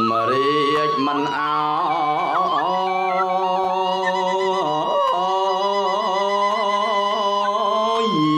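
A voice chanting Khmer smot, Buddhist chanted poetry, in long held notes with wavering, ornamented turns, over a steady held instrumental tone.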